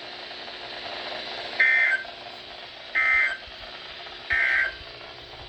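Three short, warbling two-tone bursts of EAS/SAME digital data from a NOAA Weather Radio broadcast, about a second apart, over a steady radio hiss. This is the End of Message (NNNN) code that closes a warning.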